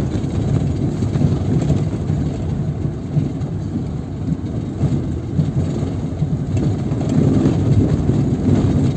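Steady low rumble of a car driving slowly over an unpaved dirt road, heard from inside the cabin: tyre and road noise with the engine running. It grows a little louder near the end.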